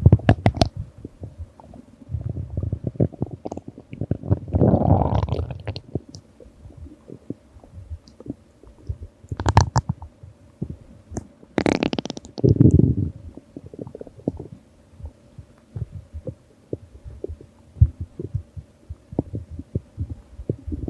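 Human stomach growling: irregular low rumbles and gurgles, with two longer rising gurgles about a quarter of the way in and just past halfway, and many small bubbling pops between them.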